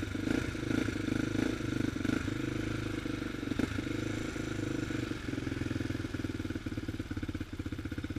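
Honda 400EX quad's single-cylinder four-stroke engine running while riding, with a few knocks and rattles from the machine. About five seconds in the engine slows and its firing pulses become more distinct.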